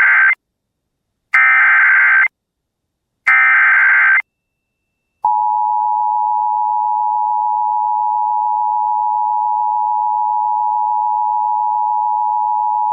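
Emergency Alert System tones. First the end of one SAME header data burst, then two more harsh, buzzing digital bursts about a second long, each followed by a second of silence. About five seconds in, a long, steady, single-pitch attention tone begins. The header bursts encode a severe thunderstorm warning, and the attention tone signals that the spoken alert message is about to follow.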